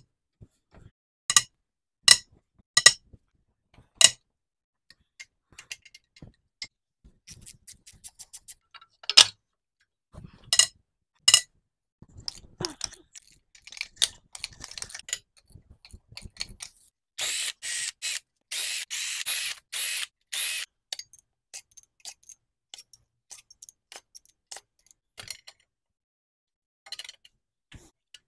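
Ratchet wrench working the main bearing cap bolts of a Ford 4.6L V8 block: single sharp clicks, short runs of quick ratchet clicking, and a few seconds of continuous fast ratcheting a little past the middle.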